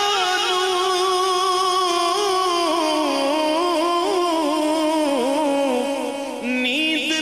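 A male naat reciter's voice singing a long, ornamented melismatic phrase without words, the held notes wavering and slowly sinking in pitch; a new phrase begins near the end.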